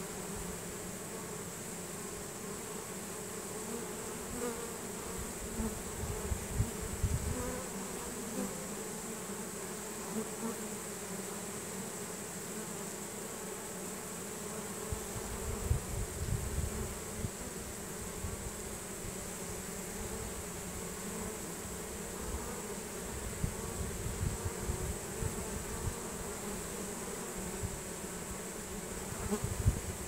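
Honey bee swarm buzzing steadily at close range as the bees crowd into a hive box, with irregular low rumbles on the microphone.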